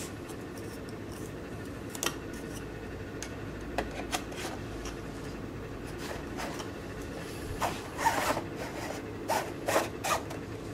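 Hard plastic pi-top laptop case being handled: scattered sharp clicks and knocks, thickening into a cluster of clicks and a short sliding rub in the last few seconds.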